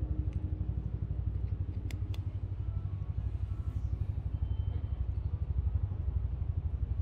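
Cat purring: a steady, low, rapidly pulsing rumble. About two seconds in there are two sharp clicks.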